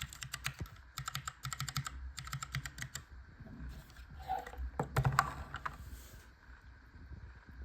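A single Cherry MX Clear tactile mechanical keyboard switch, in a bamboo-cased keyboard with a steel plate, pressed over and over in quick clicking keystrokes for about three seconds. After a short gap come a few separate, louder presses about five seconds in, then it goes quiet.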